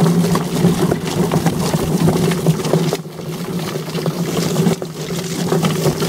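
Homemade drum chicken plucker running: its motor hums steadily while the chicken carcass tumbles and slaps against the rubber plucking fingers.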